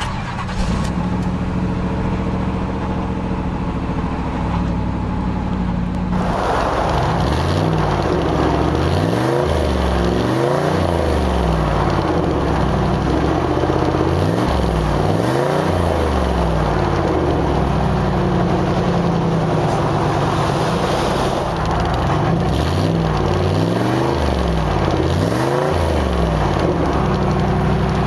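1992 Cadillac Allante's 4.5-litre V8 idling steadily, then from about six seconds in, the exhaust grows suddenly louder and the engine is revved over and over, its pitch rising and falling every couple of seconds with a steadier stretch midway.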